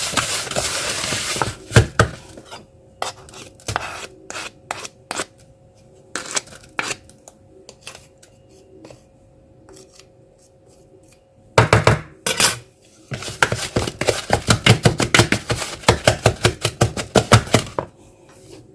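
Spoon creaming sugar into margarine in a mixing bowl, knocking and scraping against the bowl: a scrape at the start and scattered knocks, a quiet spell, then fast, even beating strokes about five a second near the end.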